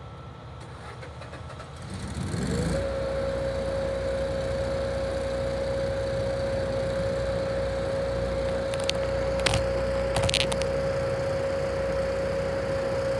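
Whelen Vortex R4 electronic siren sounding on test: it winds up in pitch over about a second, then holds one steady tone. A few short clicks come just past the middle.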